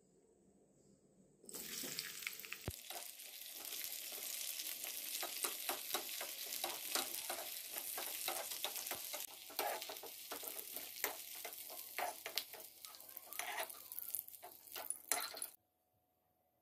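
Sliced onion sizzling in hot oil in a small aluminium kadai, stirred with a steel ladle that scrapes and clicks against the pan. The sizzle starts about a second and a half in and cuts off suddenly near the end.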